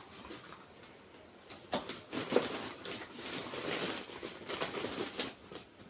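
Plastic packaging bags rustling and crinkling as they are handled. The rustle is irregular, soft at first and louder from about two seconds in.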